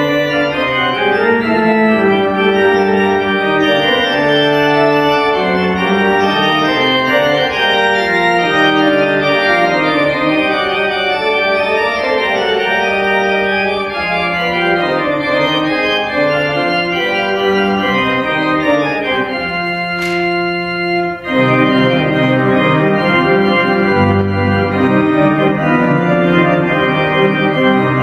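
Three-manual, 40-rank Schantz pipe organ playing a busy polyphonic passage, several voices moving in steps over low pedal notes. About twenty seconds in a chord is held, then cut off briefly before the playing resumes.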